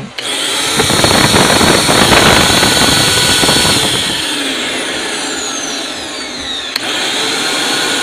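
INGCO 1300 W canister vacuum cleaner's brushed motor switched on and running at full speed, test-run after fresh carbon brushes and new bearings were fitted. It starts abruptly, is loudest over the first few seconds, then settles to a steady whine, with a high whistle falling in pitch and a short click about seven seconds in.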